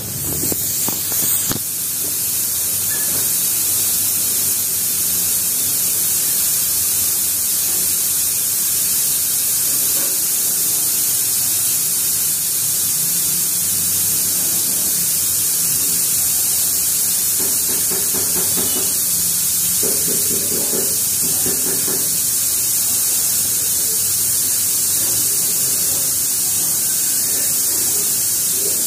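Air hissing steadily out of a punctured tyre, building up over the first couple of seconds and then holding steady.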